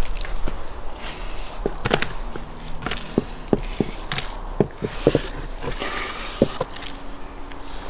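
Chunks of sturgeon slid off a wooden board into a plastic basin: a run of irregular soft knocks and taps as the pieces land and the board and hand bump the basin.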